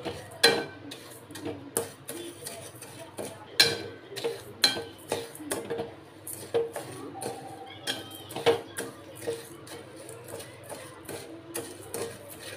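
Steel spatula scraping and clinking against a metal kadhai as dry sugar is stirred over the flame to melt it, in irregular strokes a few times a second with the pan ringing briefly after each knock.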